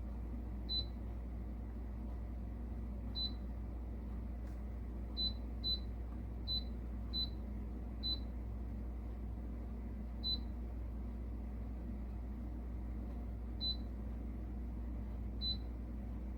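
Air fryer running with a steady low hum, broken by about ten short, high beeps at uneven intervals.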